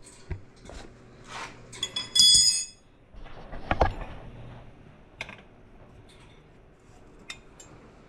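Metal hand tools and exhaust hardware clinking and knocking during exhaust removal: a loud metallic ring about two seconds in, a heavier knock near four seconds, and scattered lighter clicks.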